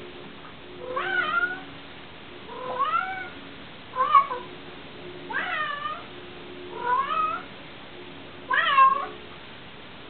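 Maine Coon cat meowing six times, roughly every one and a half seconds, each call rising then falling in pitch.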